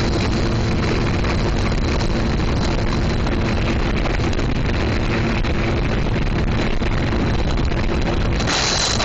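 Sea-Doo personal watercraft running steadily under way, its engine drone mixed with wind buffeting the microphone. Near the end, a louder rushing hiss comes in suddenly.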